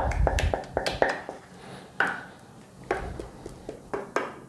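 Wooden spoon scraping and knocking against the inside of a stainless steel saucepan while thick brigadeiro mixture is scraped out. Light taps come in quick succession in the first second, then singly about once a second.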